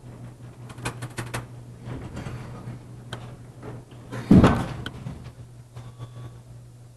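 Light clicks and taps of handling noise, with one louder, heavier thump about four and a half seconds in, over a steady low hum.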